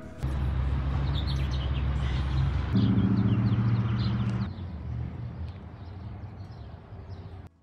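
A motor vehicle's engine running with a steady low hum that steps up in pitch about three seconds in and fades out about halfway through. Birds chirp in short high calls at the same time.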